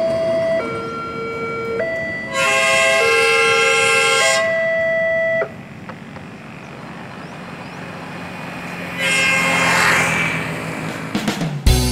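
Level-crossing warning alarm sounding in an alternating two-tone pattern, with a train horn sounding a loud chord for about two seconds over it. The alarm cuts off suddenly about halfway through. Then comes road traffic, with a vehicle rushing past near the end.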